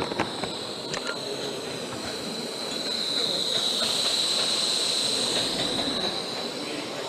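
Gauge One model train rolling past on the next track, its wheels running on the rails with a high steady whine that swells as it comes close and fades again near the end. A few light clicks sound in the first second.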